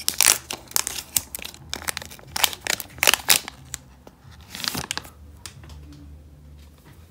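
Shiny foil trading-card pack crinkling and tearing as it is opened and a card in a plastic holder is slid out: a dense run of sharp crackles and rips in the first three and a half seconds, one more near five seconds in, then quieter handling.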